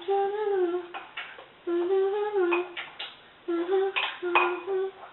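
A girl humming a tune in a series of held notes, with a few short sharp noises between them.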